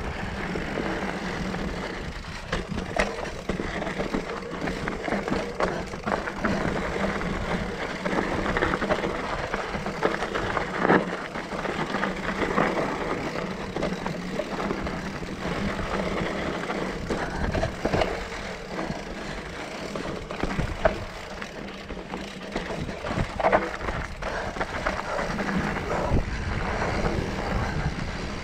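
Mountain bike ridden over dry dirt singletrack: a steady rush of tyre and wind noise, broken by frequent knocks and rattles as the bike runs over bumps and rocks.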